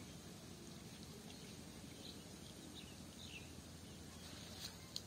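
Faint outdoor ambience: a steady low rumble with scattered short bird chirps, and two sharp clicks near the end.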